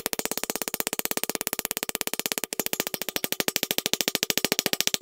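Mallet strikes on a wooden wedge being driven into a hatchet handle, coming so fast and evenly, about twenty a second, that they run together into a buzz, as in sped-up footage; a brief break about two and a half seconds in.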